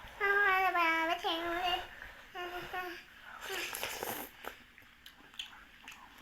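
A high voice sings a short wordless tune for about three seconds, with the pitch gliding up and down. A brief breathy rush follows, then a few faint clicks.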